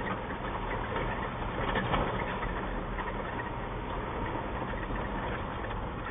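Gas delivery vehicle's engine running steadily with tyre and road noise on a dirt road at about 35 km/h, heard from a dashcam inside the cab.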